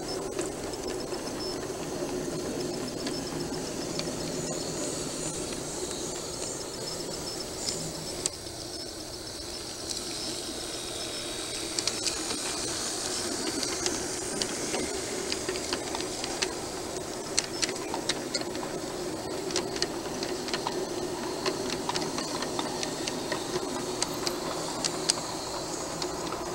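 G-scale model freight train rolling along outdoor track: a steady rumble of wheels and motor with a high hiss, and many sharp clicks as the wheels pass over rail joints.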